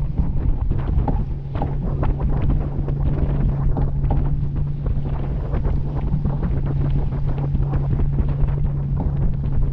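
Wind buffeting the microphone over the rush and splash of water along a sailing yacht's hull and wake, with a steady low hum underneath.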